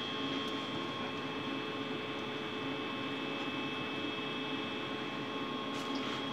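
Steady hum of a running kitchen appliance: several steady tones over an even hiss, with a couple of light clicks near the end.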